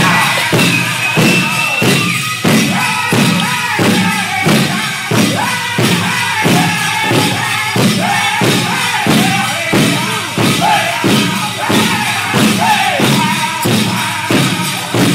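Powwow drum and singers: a big drum struck in a steady beat about two times a second under high-pitched group singing, accompanying the Prairie Chicken dance.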